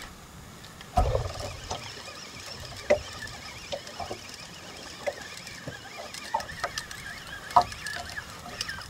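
Shimano Saragosa spinning reel being cranked under the load of a hooked fish on a jigging rod. There is a low thump about a second in, then scattered short squeaks and knocks.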